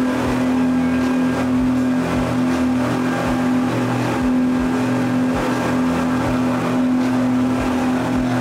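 The engines of a four-engine speed catamaran running steadily at cruising speed, a constant loud drone, heard from inside the cabin, with low thuds about twice a second.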